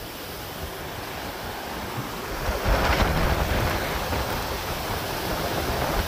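A mountain stream in flood, rushing and churning with a steady roar of white water that grows louder about halfway through. Wind gusts rumble on the microphone.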